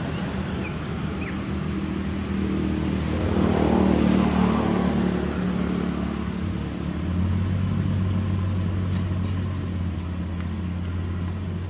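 Motor engine running steadily, swelling briefly a few seconds in, under a constant high-pitched hiss.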